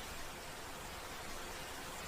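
Steady, even hiss of a night-room ambience track, unchanging throughout.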